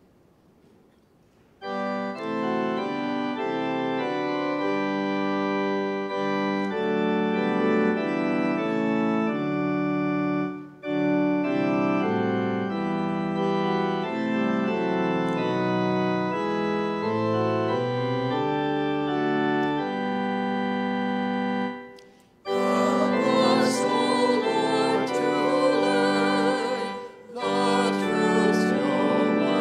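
Church organ playing the introduction to a hymn in sustained chords, starting about two seconds in and pausing briefly between phrases. After a short break near the end, a congregation starts singing the hymn with the organ.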